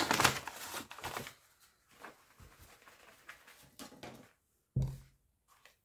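Wheat flour pouring out of a 1 kg paper flour bag into a plastic bowl, with the paper bag rustling, for the first second or so. Then come a few faint handling sounds and a single soft knock near the end.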